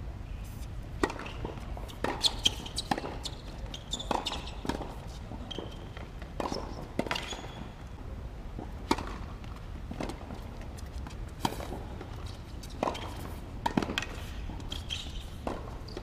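Tennis ball bounced on a hard court before a serve, then the serve and a rally: a string of sharp, separate racket strikes and ball bounces.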